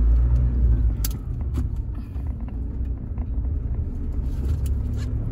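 Car interior noise while driving: a steady low rumble from the engine and the tyres on the road, louder for about the first second, with a few light clicks and rattles.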